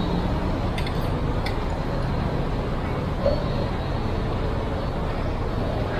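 Food court ambience: a steady mix of many people talking at once over a low hum, with a few short clinks about a second in.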